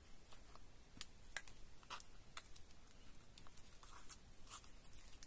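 Faint handling of small paper hearts and a plastic glue bottle on a craft mat: scattered light clicks and taps.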